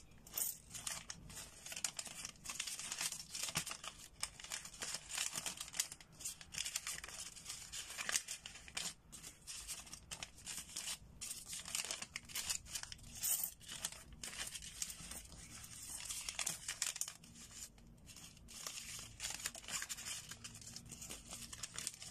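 Folded paper banknotes being unfolded and smoothed out by hand: a continuous, noisy crinkling and rustling of paper with many small sharp crackles.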